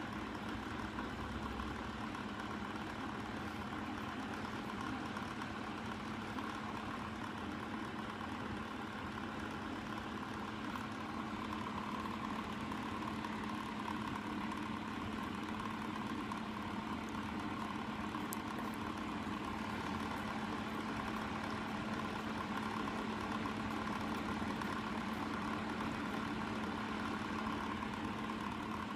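Steady mechanical hum of a running motor, even in pitch and level.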